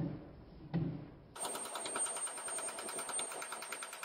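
Forging blows on a white-hot damascus steel billet: two heavy low thuds about three-quarters of a second apart. About a second and a half in, the sound changes to a fast, even rattle of rapid strikes with a thin high whine.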